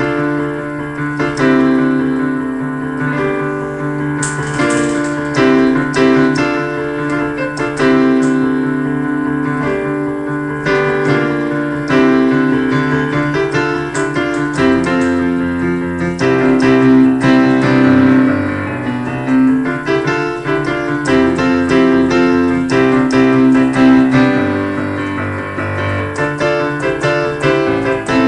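Electronic keyboard playing a piano sound: a fast solo piano piece, low bass notes held under quick, busy chords and melody higher up.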